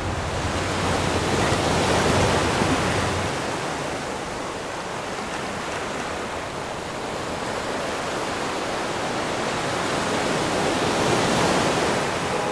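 Sea water rushing and washing, a steady hiss of surf that swells, eases off in the middle and swells again near the end.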